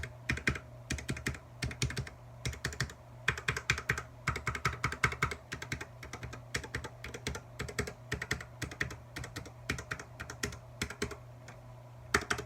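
Royal Kludge RK61 60% mechanical keyboard being typed on: a fast, irregular run of keystroke clacks with short pauses between bursts, over a steady low hum.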